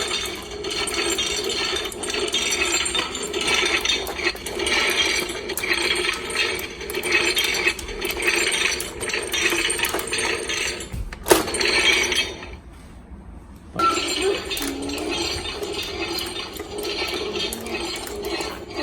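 Hasbro Marvel Avengers Infinity Gauntlet toy playing its electronic movie-style sound effect, triggered by moving its articulated fingers. The sound breaks off briefly about two-thirds of the way through, just after a sharp click, then plays again.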